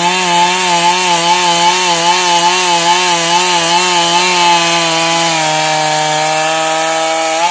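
Stihl two-stroke chainsaw at high revs cutting lengthwise through wood, its pitch wavering about twice a second as the chain takes load. A little past five seconds in, the pitch holds steady.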